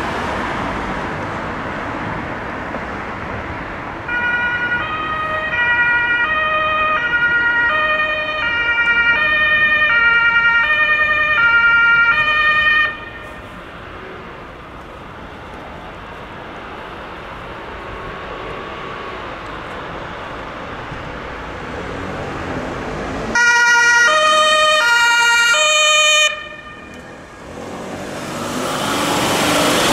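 German two-tone emergency siren (Martinshorn) of an ambulance, alternating between a high and a low note, sounding for about nine seconds, cutting off abruptly, then sounding again for about three seconds later on. Between the siren bursts there is steady traffic noise, and a vehicle passes close near the end.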